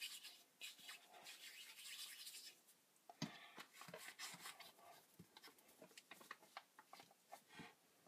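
Faint rubbing of fingers rolling a lump of Fimo polymer clay on the work surface, with scattered small ticks and taps in the second half.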